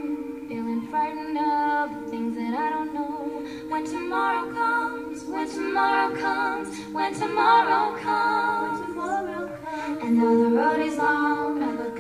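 Female a cappella group singing: long harmony notes held underneath while lead voices carry the melody above.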